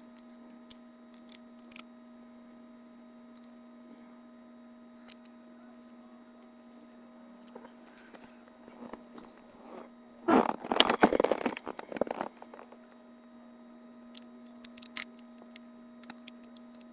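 Steady electrical hum with a few faint clicks as the figure is handled. About ten seconds in comes a loud burst of crackling, clattering handling noise that lasts about two seconds.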